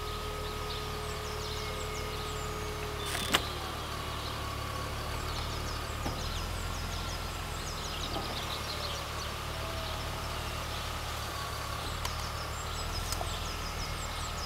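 The BMW 330Ci convertible's power soft top finishes closing. A steady motor whine runs for about three seconds, then ends with a click and a falling tone as the roof locks down. After that there is a steady low hum with small birds chirping.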